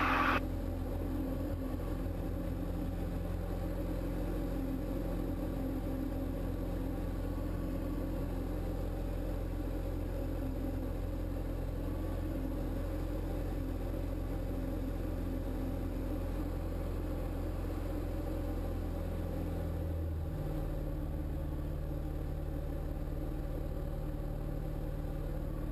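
Single-engine Diamond light aircraft's piston engine and propeller droning steadily, heard inside the cockpit. The engine note drops slightly about twenty seconds in.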